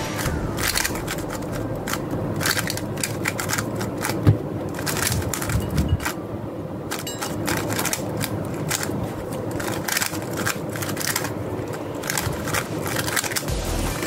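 Dayan Tengyun V3M magnetic 3x3 speedcube being turned rapidly by hand: a quick, uneven run of plastic clicks and light scraping as the layers turn, with one louder knock about four seconds in.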